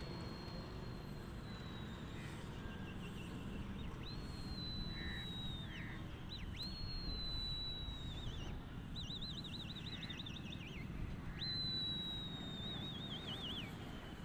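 A person whistling shrilly to a flying pigeon flock: a string of long, high whistles, each held and sliding slightly down, several breaking into a wavering trill at the end, over a low steady outdoor rumble.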